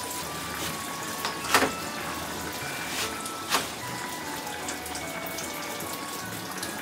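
Tap water running steadily into a kitchen sink, with a few sharp knocks of a kitchen knife on the cutting board, about one and a half seconds in and twice more around three and three and a half seconds in.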